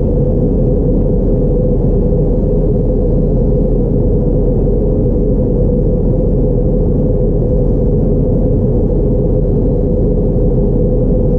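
Cabin noise of an Airbus A321neo in flight, heard from a window seat beside the CFM LEAP-1A engine: a steady, loud low drone of engine and rushing air with a constant hum.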